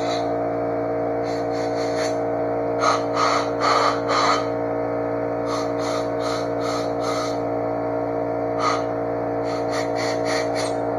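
Compressed air hissing from a handheld blow gun in short blasts, in several clusters, as it blows out carburetor parts; the blasts are the loudest sound. Under them an air compressor runs with a steady hum.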